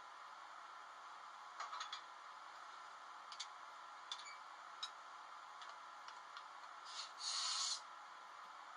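Sound decoder in a TT-scale BR 243 model electric locomotive, playing through its small speaker: scattered sharp clicks over a faint steady hiss, with a short hiss of air about seven seconds in and another near the end.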